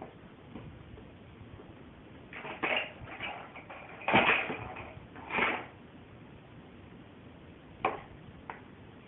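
Hard plastic clattering and knocking from a Tonka push-walker toy truck as its dump bed is lifted and let fall: a few knocks in the middle, the loudest about four seconds in, then a sharp click near the end.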